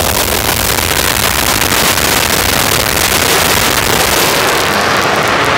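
Dirt late model race cars running at speed on the track, a loud, dense wash of engine noise from several cars. The highest part of the sound eases off near the end as they move away.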